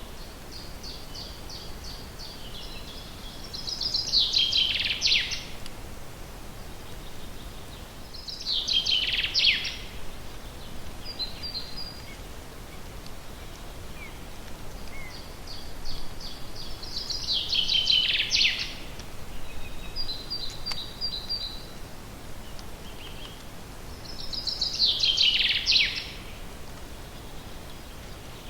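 A forest songbird sings the same short song four times, each a run of quick high notes that ends in a falling flourish. Another bird gives brief high chirps between them over a steady background hiss.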